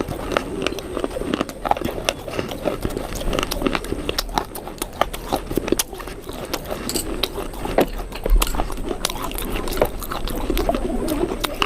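Close-up crunching: someone biting and chewing something crisp, with many irregular sharp crackles.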